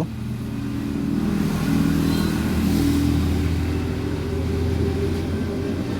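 Road traffic from a main road: a motor vehicle's engine running and revving as it passes, a low hum that swells through the middle and eases off.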